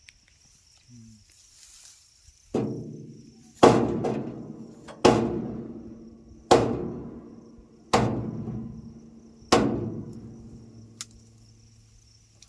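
A resonant metal object struck six times, about a second and a half apart, each blow ringing out and fading over a second or two.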